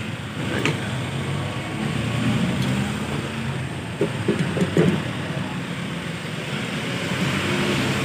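A steady low engine-like hum in the background, with several short metal knocks about halfway through as a microwave oven's magnetron is handled and fitted back into its mounting.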